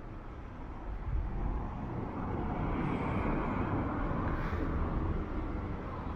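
A motor vehicle passing by. Its noise builds from about a second in, holds through the middle and eases off slightly near the end.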